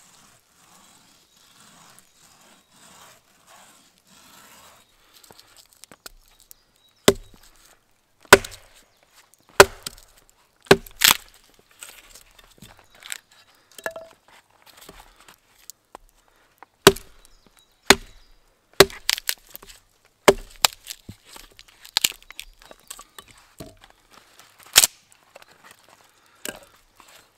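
Axe chopping a stick of wood against a charred log used as a chopping block: sharp wooden knocks, irregularly spaced a second or two apart, starting about seven seconds in. Before that, faint, even strokes of sawing wood.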